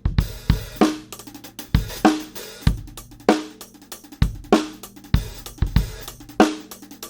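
Acoustic drum kit played dry through a Yamaha EAD50 drum module, with kick, snare and hi-hat mics added to the unit's overhead mic. It plays a slow, steady groove: deep kick drum thuds, a snare backbeat about every 1.2 seconds, and hi-hat and cymbal between.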